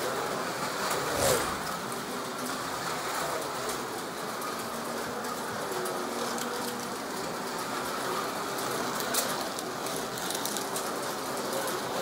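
Slot cars running on a Carrera Digital track, their small electric motors whining. One passes close by about a second in, its whine swelling and falling away.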